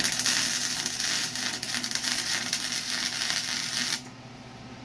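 Wire-feed (MIG) welder arc crackling steadily as a bead is laid on an exhaust V-band fitting; the arc cuts off suddenly about four seconds in.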